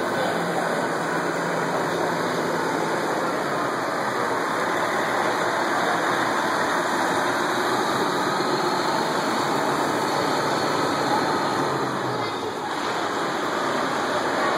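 Fire engine's diesel engine running at low speed as the truck pulls slowly into the station bay, over a steady hiss of rain.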